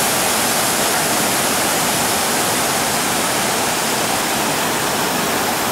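Muddy floodwater surging and churning below a lake's surplus weir: a loud, steady rush of white water.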